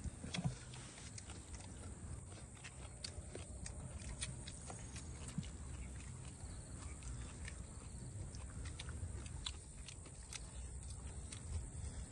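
People eating by hand: scattered small clicks and smacks of chewing and of fingers picking at grilled fish and papaya salad, over a low steady rumble.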